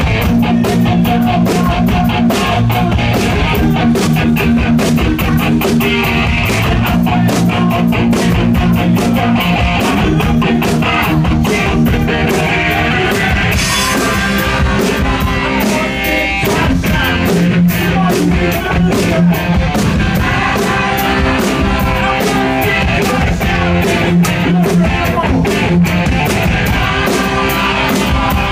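Live rock band playing loud: electric guitar and drum kit driving a steady beat, with singing.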